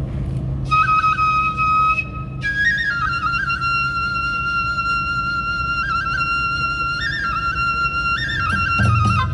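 Kagura transverse bamboo flute (yokobue) playing long held notes, each broken by quick trills and grace notes, over a low steady hum.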